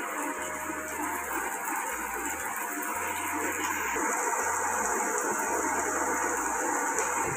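Onions and masala paste frying in hot oil in a kadai, a steady crackling sizzle that grows a little louder about four seconds in.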